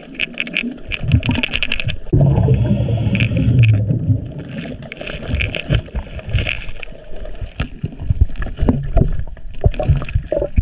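A scuba diver's own breathing through the regulator, heard underwater: a hissing inhale, then a rumbling rush of exhaled bubbles about two seconds in, another hissing inhale around five seconds, and scattered clicks and knocks near the end.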